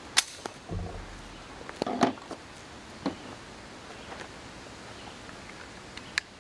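Sig Sauer P365 9mm micro-compact pistol firing single shots, each a short sharp crack. Two loud shots about two seconds apart, then fainter cracks about three seconds in and near the end.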